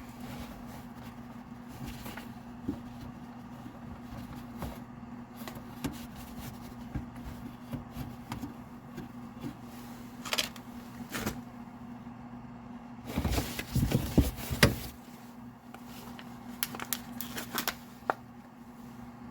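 Scattered plastic clicks and knocks of hands working the low-beam bulb cover off the back of a headlamp assembly, with a louder run of knocks about two-thirds of the way through, over a steady low hum.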